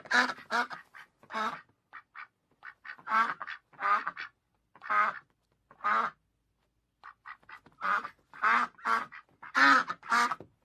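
Duck quacking: a run of short, nasal quacks in clusters of two to four, with brief pauses between clusters.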